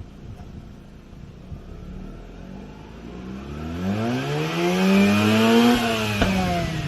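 Mazda RX-8's two-rotor Renesis rotary engine idling, then revved up over about two seconds and let fall back, with one sharp click as the revs drop. The engine is being run with Seafoam in it.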